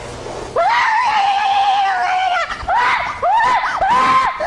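A loud, high-pitched cry held for about two seconds, then four or five shorter cries that rise and fall.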